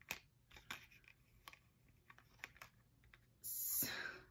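Faint handling noise from a cardboard earring card with small dangle earrings held in the fingers: soft, irregular clicks and taps, then a short rustling hiss about three and a half seconds in.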